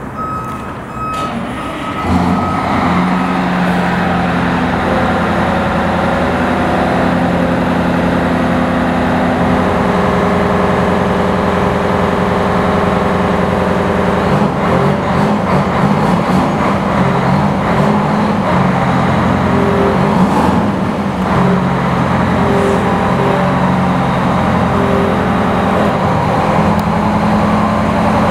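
The Detroit Diesel 8V92TA two-stroke V8 of an E-One Hurricane ladder truck running as the truck rolls slowly forward, its note rising and falling between about fourteen and twenty-two seconds in. A short air hiss comes about twenty seconds in. A few evenly spaced electronic beeps sound in the first second.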